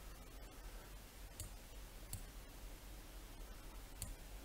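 A few faint computer mouse clicks, spaced a second or more apart, over quiet room noise.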